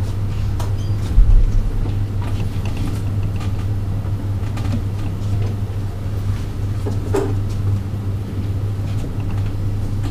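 Countertop blender running steadily, grinding soaked cashews with their soaking water into a cashew cheese paste, with one heavy thump about a second in.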